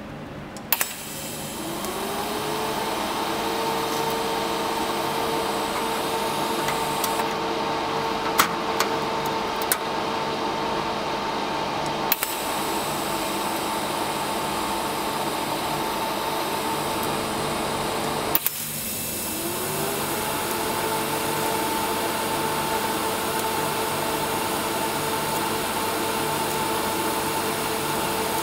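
TIG welding set running while thin sheet steel is tacked and welded: a steady hiss with a hum that glides up in pitch and then holds, twice, and a few sharp clicks.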